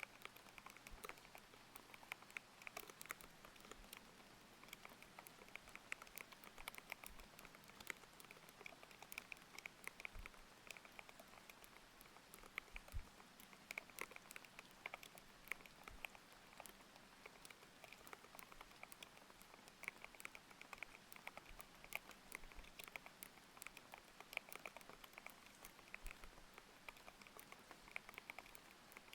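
Mechanical keyboard with Aqua King linear switches being typed on in a steady, irregular stream of thocky key strikes, over a faint even hiss of layered rain.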